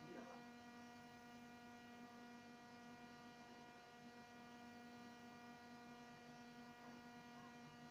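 Faint, steady electrical hum, a low buzzing tone that does not change, with nothing else heard.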